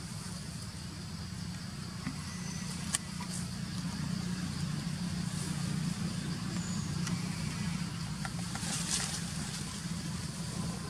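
Steady low engine hum, a little louder in the middle, under a faint high steady hiss. A single sharp click about three seconds in.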